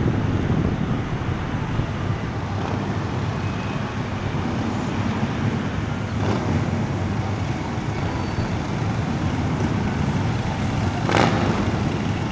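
Steady outdoor traffic rumble mixed with wind buffeting the microphone, with a brief louder rush near the end.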